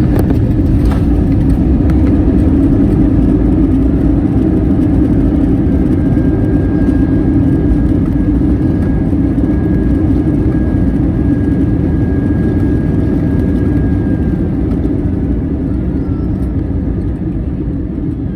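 Steady loud cabin rumble of an Airbus A321's jet engines and airflow, easing off a little toward the end, with a faint steady whine through the middle.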